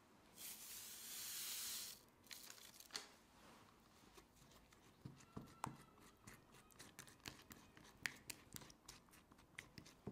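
Silicone spatula stirring a thick, creamy cheesecake filling in a glass bowl: quiet wet squishes and small clicks of the spatula against the glass. A steady hiss of about a second and a half comes shortly after the start.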